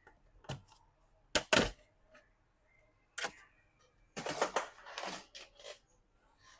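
Sharp plastic clicks and cracks as the bottom cover of a Dell Vostro 5460 laptop is pried off with a pencil, its snap clips popping loose. A few single clicks come first, the loudest a double crack about a second and a half in, then a denser run of cracking and scraping from about four seconds in.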